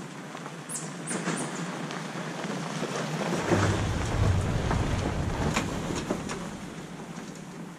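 Pickup truck towing a loaded utility trailer drives past on a gravel driveway. The engine and tyre noise grows louder toward the middle, with scattered clicks and rattles, then fades as the truck pulls away.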